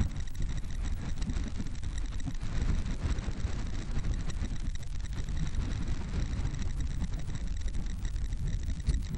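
Strong wind buffeting the microphone, a heavy uneven rumble, with the faint steady drone of a twin-engine firefighting aircraft passing overhead.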